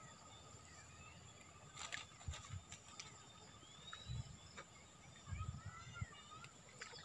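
Faint outdoor ambience of birds chirping, with short calls that curve in pitch, over a steady high insect whine. A few soft low thumps and clicks come in the second half.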